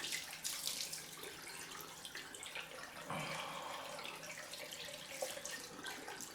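Cold tap running into a sink, with uneven splashes as water is scooped and splashed by hand.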